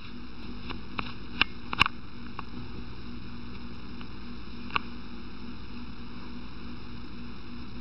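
Steady hiss and hum of room noise, with a few light clicks in the first two seconds and one more about five seconds in.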